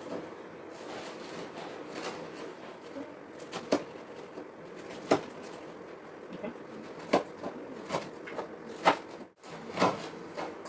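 Kitchen knife slicing cabbage on a wooden chopping board: irregular knocks of the blade striking the board, coming closer together in the second half.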